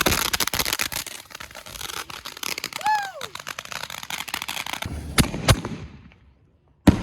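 Fireworks going off: dense crackling of firecrackers that thins out over several seconds, then two sharp bangs a fraction of a second apart. After a short gap comes one more bang near the end.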